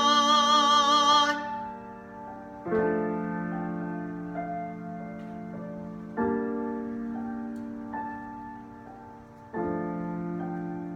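Piano playing slow sustained chords, struck about every three and a half seconds and left to ring and fade, with a few lighter notes in between. A held note with vibrato over the first chord cuts off just over a second in.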